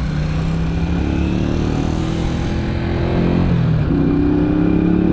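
Italika DT 125 motorcycle's single-cylinder four-stroke engine pulling under way, its revs climbing slowly. The revs break off briefly about three and a half seconds in, as at a gear change, then climb again.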